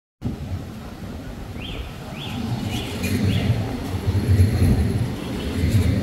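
Busy street ambience: a continuous low rumble, with a bird chirping four times in quick succession, each note rising then falling, from about one and a half to three and a half seconds in.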